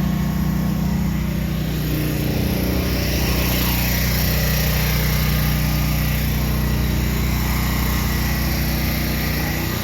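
Air-conditioning condensing units running: a steady low compressor and fan hum.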